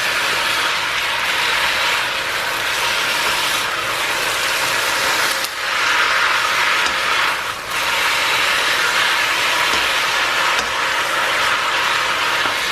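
Strips of beef flank sizzling in a hot oiled wok as they are stirred with a spatula: a steady frying hiss that briefly drops twice, about five and a half and seven and a half seconds in.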